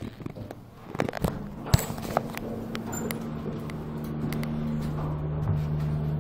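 A steady low machine hum with two held tones, starting about a second in and slowly growing louder, with a few sharp knocks and clicks early on from the handheld camera or footsteps.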